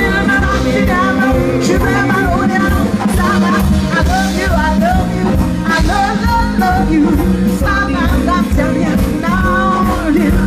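Music: a song with a singing voice over a steady, driving beat.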